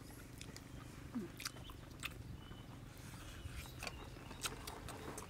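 People chewing and lip-smacking as they eat fried chicken, with a handful of short, sharp clicks scattered through it.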